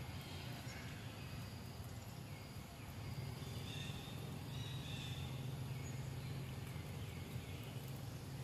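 Outdoor background: a steady low hum under a faint hiss, with a few short, faint high chirps now and then.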